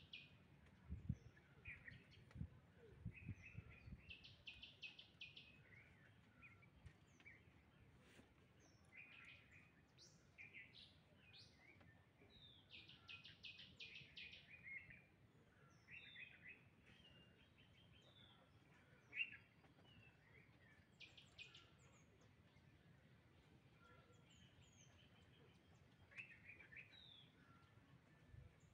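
Faint birdsong: several birds giving short chirps and quick trilled runs of notes, scattered through the whole stretch. A few dull low thumps come in the first few seconds.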